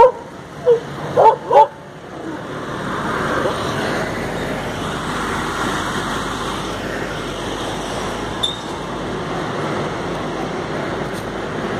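A female Indian street dog (desi dog) on a leash barks four times in quick succession, then stops. After that comes a steady rustling crunch of dry leaves and fronds underfoot as she is walked over leaf litter.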